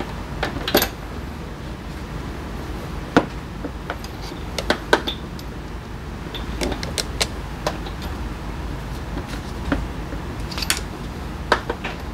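Hand tools and small metal parts clicking and clinking, irregular sharp clicks every second or so over a steady low hum.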